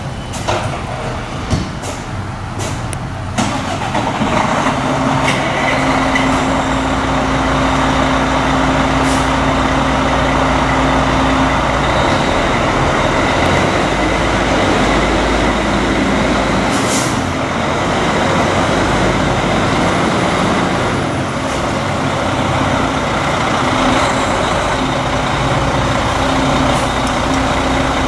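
Fire trucks' diesel engines running as the rigs move out, growing louder about three seconds in, with a short hiss of air brakes near the middle.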